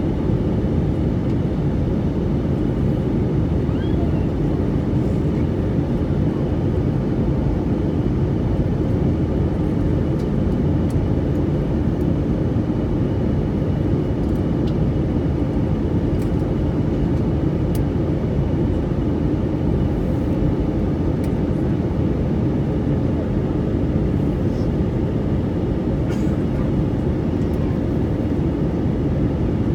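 Steady cabin noise of a jet airliner in flight: the low, even noise of its turbofan engines and the air rushing past the fuselage, heard from a window seat inside the cabin, with a faint steady hum over it.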